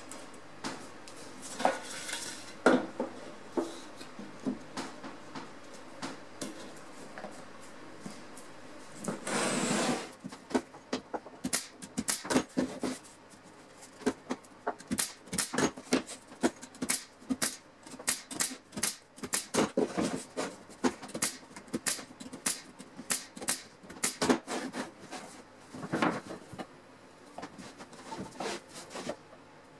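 Wooden boards and parts being handled and set down on a workbench, making knocks and clatter. A short burst of hissing comes about nine seconds in, then a long, uneven run of sharp taps and clicks.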